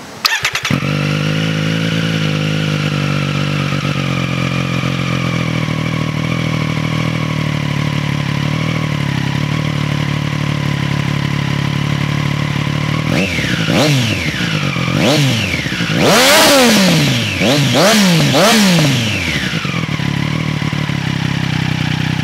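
2020 Triumph Street Triple RS's 765 cc three-cylinder engine running through an SC Project SC1-R exhaust with its baffle removed. It idles steadily, then is blipped in about six quick revs from about 13 to 19 seconds in, each falling back to idle, and then idles again.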